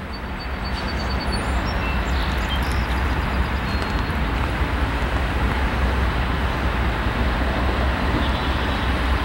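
Norfolk Southern diesel freight locomotives approaching from a distance, heard as a steady low rumble under a wash of outdoor noise.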